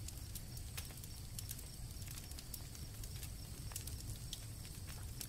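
Campfire crackling with scattered sharp pops over a low rumble of flames, and crickets chirping faintly and steadily.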